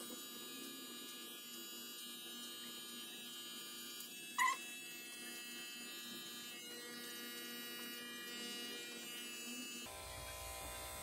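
Corded electric hair clippers buzzing steadily while trimming around the sideburn. One brief higher-pitched sound stands out about four seconds in.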